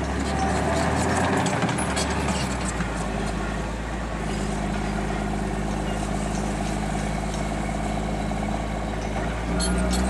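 Crawler bulldozer's diesel engine running hard under load as it pushes earth, its note shifting about two seconds in. Clanking from the steel tracks and blade comes mostly in the first couple of seconds and again near the end.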